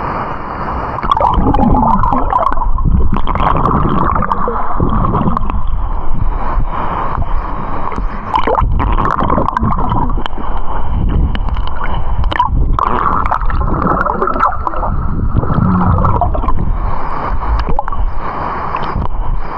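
Loud, close water rushing and gurgling, with small splashes and clicks through it.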